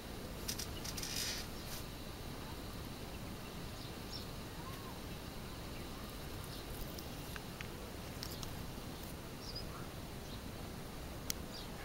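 A few faint, short bird chirps over a steady low hiss, with a single sharp click near the end.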